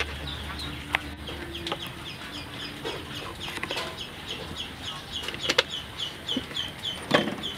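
A bird chirping over and over in a quick run of short, falling chirps, about four a second, with a few sharp knocks, the loudest near the end.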